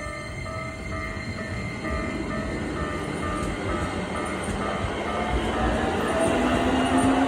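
Level-crossing warning bell ringing in a steady repeating two-tone pattern while a Keikyu train approaches, its rumble growing louder. About six seconds in, the train's motors whine, rising in pitch.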